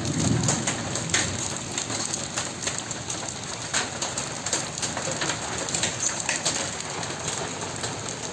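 Hail and heavy rain falling on a concrete rooftop: a steady rain hiss with many sharp, irregular clicks of hailstones striking the surface.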